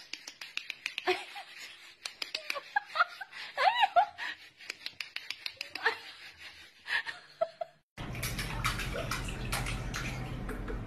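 Light scattered clicks and a few short rising-and-falling calls, then about eight seconds in a tap running steadily into a stainless-steel sink, with splashing as a cat paws at the stream.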